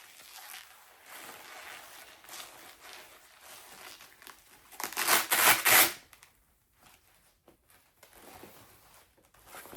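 Velcro strap on a leg massager wrap being handled with soft rustling, then pulled open in one loud tearing rip about five seconds in that lasts about a second.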